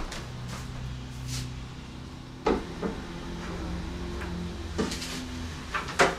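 An acoustic guitar being lifted off its wall hanger and handled: a few sharp wooden knocks and clunks, about four, with low steady tones from its strings ringing between them.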